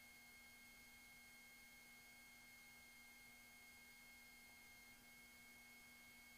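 Near silence: a faint steady hiss with a thin, high, steady tone and a fainter low hum.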